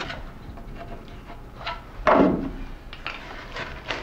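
Hand knife cutting and scraping into a soft poplar-wood clog in a series of separate strokes, the loudest about two seconds in.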